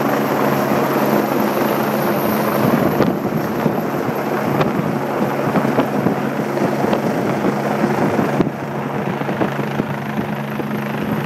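Rescue helicopter running close by: a steady low drone from its rotor and turbine under a loud rushing noise. It eases off slightly about eight seconds in.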